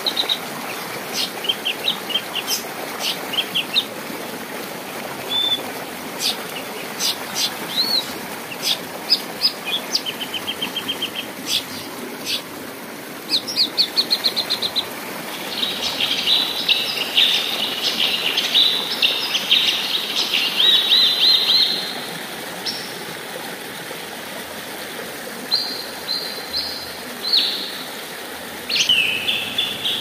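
Songbirds singing: a string of short, sharp chirps and whistles, a dense warbling run in the middle, and more calls near the end, all over the steady rush of a river.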